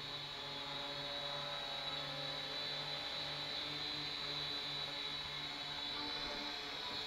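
Small quadcopter drone hovering, its electric motors and propellers giving a steady high whine over a lower hum, the hum briefly pulsing midway.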